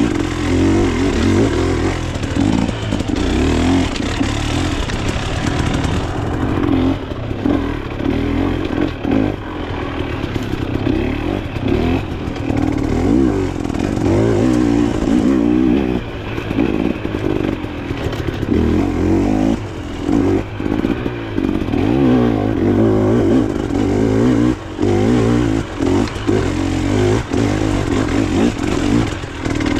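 Off-road dirt bike engine running under constantly changing throttle, revs rising and falling as it is ridden over a trail, with a few short throttle chops and some clattering.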